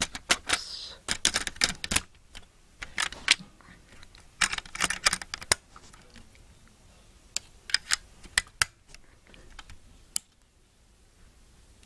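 Irregular clicks and light plastic knocks from Snap Circuits parts being handled and snapped onto the plastic base grid, coming in small clusters and stopping about ten seconds in.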